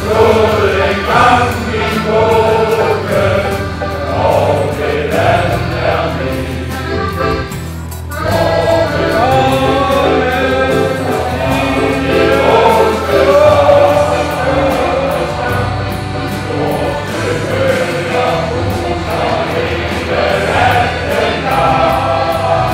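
Male choir singing in unison and parts over a steady low accompaniment, with a short pause between phrases about eight seconds in.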